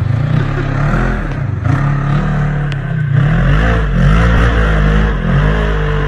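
Off-road vehicle engine running under load, its pitch rising and falling repeatedly as the throttle is worked, over a rushing noise. There is a brief sharp click a little under three seconds in.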